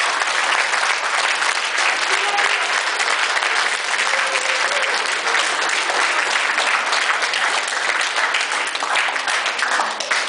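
Audience and people on stage applauding, a dense steady clatter of many hands clapping that begins to die away at the very end.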